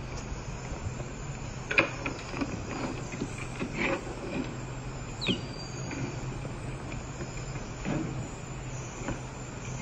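Plastic baby toys knocking and scraping on the floor as a young white-faced saki monkey handles them: scattered light clicks and taps over a steady low hum, with a short falling high chirp a little past five seconds in.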